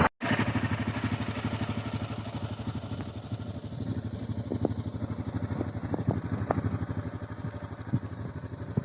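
Yamaha XT660Z's single-cylinder 660 cc engine idling with an even, rapid pulse, with a few sharp clicks standing out over it.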